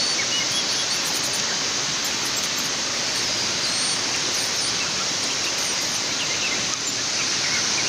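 Steady outdoor background hiss, even and unbroken, with a few brief bird chirps scattered through.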